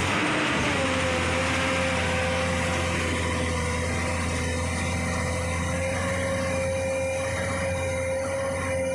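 Komatsu PC200 excavator's diesel engine running steadily, with a low hum and a steady high whine that dips in pitch about half a second in and then holds.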